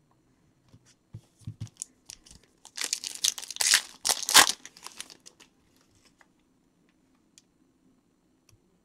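Plastic trading card pack wrapper being torn open and crinkled, in two loud bursts about three and four seconds in, after a few soft handling knocks.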